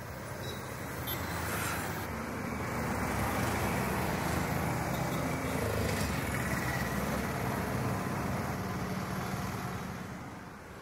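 Street traffic: motor vehicle engines running and passing close by. The sound grows louder a couple of seconds in and eases off near the end.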